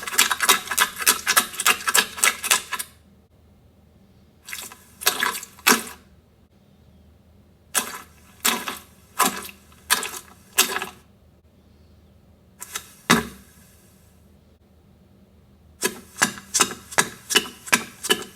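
Runs of rapid, sharp taps, several a second, broken by short pauses.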